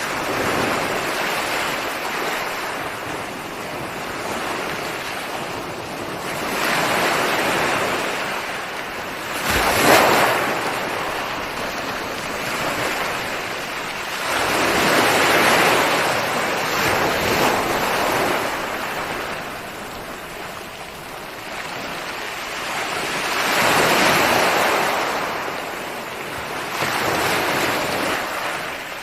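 Ocean surf: waves breaking and washing in, the rush of water swelling and ebbing every several seconds, with one sharper crash about ten seconds in.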